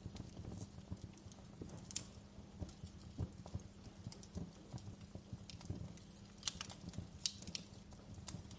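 Wood fire burning in a fireplace: irregular crackles and sharp pops over a low, steady rumble. There is a loud pop about two seconds in and a cluster of louder pops in the latter part.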